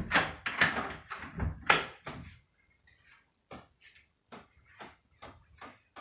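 A few loud knocks and rustles in the first two seconds, then a regular ticking from about the middle on, roughly two to three sharp ticks a second. This is the recurring ticking noise being hunted for in the house.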